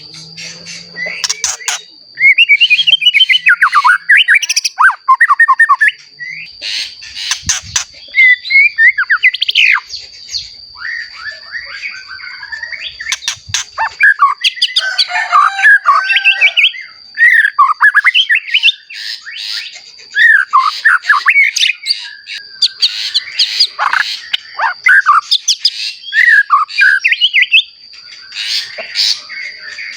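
White-rumped shama, a young bird newly moulted into adult plumage, singing hard: loud, varied bursts of quick sweeping whistles and harsh chattering notes with short pauses between phrases. A steady thin high tone runs underneath.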